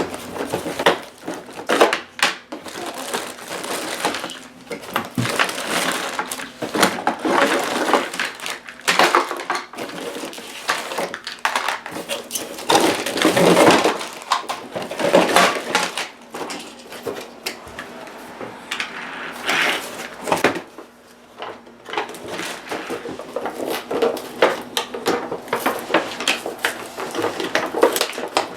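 Cardboard toy box and plastic packaging being opened and handled: irregular crinkling, rustling and clicking that goes on throughout.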